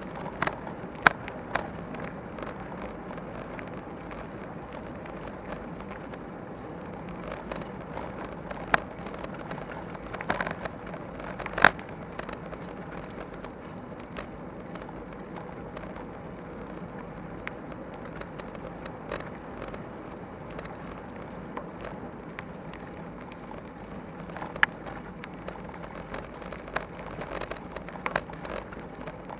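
Bicycle rolling over a gravel forest track, heard through a bike-mounted camera: a steady rolling tyre noise with sharp knocks from bumps a handful of times.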